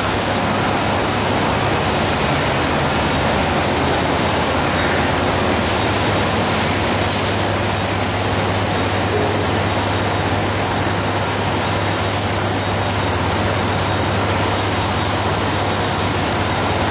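Steady factory-floor machinery noise from a glass cutting line: an even, loud hiss over a constant low hum.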